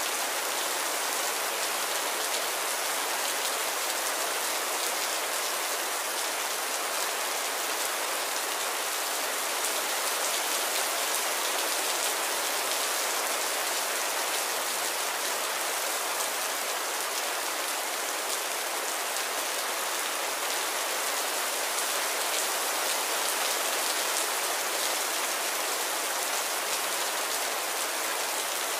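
Heavy rain falling steadily, a dense even hiss with no let-up.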